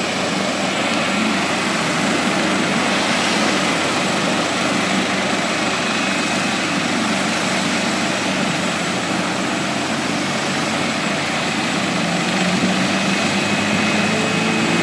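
Maryland State Police medevac helicopter's steady rotor and engine noise, mixed with passing road traffic.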